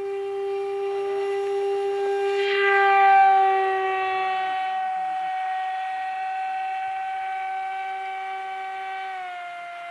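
Radio-controlled model airplane's engine running at full throttle with a steady high-pitched tone. It grows louder and brighter about three seconds in as the plane passes close, and drops slightly in pitch near the end.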